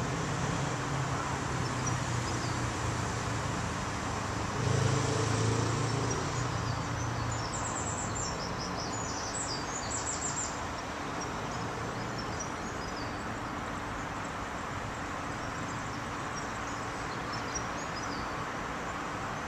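Steady background noise with birds chirping for a few seconds near the middle. A low hum swells briefly about five seconds in.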